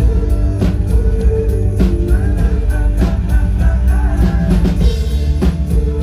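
Live band playing loud amplified rock music, with a steady drum-kit beat under heavy bass and held chords.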